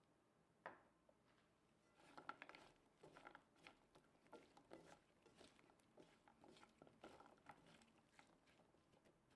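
Faint kitchen handling sounds: a single sharp click, then a run of irregular light taps and clicks for several seconds.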